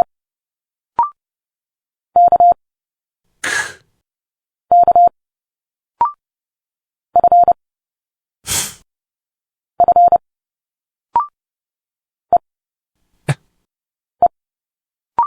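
Morse code sent at 30 words per minute: a steady beeping tone keyed in quick groups of dots and dashes, one letter about every two and a half seconds. Each letter is followed about a second later by a short spoken consonant sound for it, a hiss or a click. The last few letters are single short beeps.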